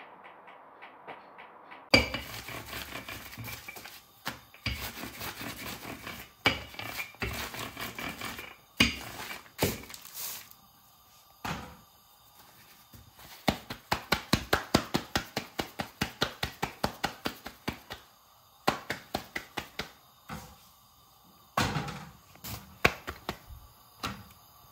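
Kitchen utensils knocking and clattering on hard surfaces. A loud knock comes about two seconds in, then irregular clatter, and in the middle a fast, even run of strikes at about five a second, like chopping.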